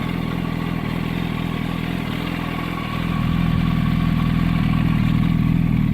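2007 Yamaha YZF-R1's inline four-cylinder engine running steadily at idle, freshly refilled with 10W-40 oil after an oil change. It gets louder about three seconds in.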